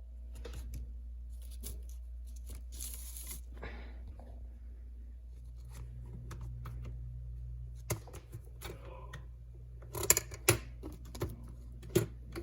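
Scattered light clicks and knocks, as of small hard parts being handled, over a steady low hum, with a few sharper, louder knocks near the end.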